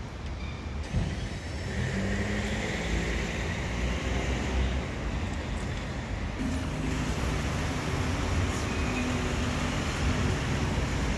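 City street traffic: motor vehicles driving by with a steady low rumble, engine hum and tyre hiss, one vehicle's hum standing out from about two seconds in and another from just past the middle.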